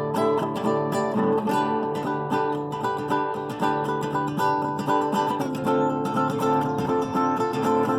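Acoustic guitar played with plucked notes and strummed chords, many notes ringing together at an even, fairly lively pace.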